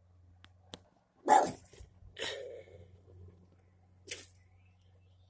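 A dog barks twice, about one and two seconds in, the first the loudest, then gives a shorter sharp yap about four seconds in. A faint steady low hum sits underneath.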